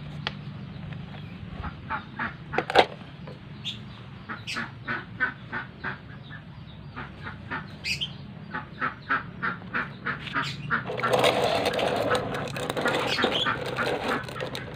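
Poultry calling in short repeated notes, busiest from about eleven seconds in, with a few sharp clicks of hard plastic toys being handled.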